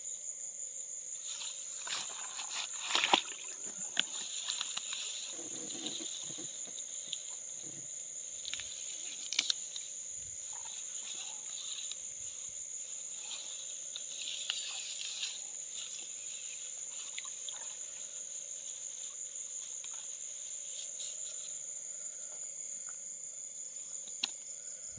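Night insect chorus: a steady high cricket trill, over a fainter lower steady drone, broken by rustling and a few sharp clicks, the loudest about three seconds in.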